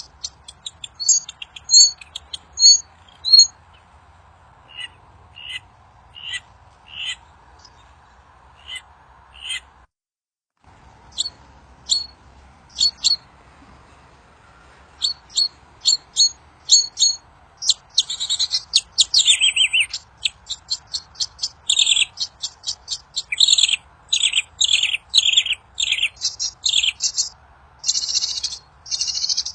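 Wild songbird, known in Indonesia as 'burung kincir angin' (windmill bird), calling in series of short, sharp, high-pitched chirps, with quick runs of downward-sweeping notes in the second half. A faint steady hiss sits underneath, and the sound cuts out completely for a moment about a third of the way in.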